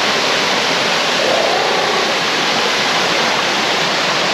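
Rushing water of a creek and waterfall: a steady, loud wash of noise.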